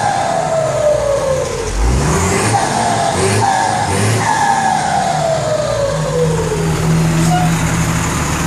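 Volkswagen 210 bus's turbo-diesel engine being revved, its turbo fitted with an aftermarket whistle ('pente') that makes it sing. The whistle falls in pitch as the revs drop, twice, with a rev-up between, and the engine settles to a steady idle near the end.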